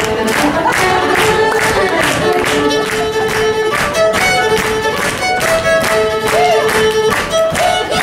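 Violin bowed in long held notes of a slow melody, with a pitch slide near the end, over a steady backing beat of about three to four pulses a second.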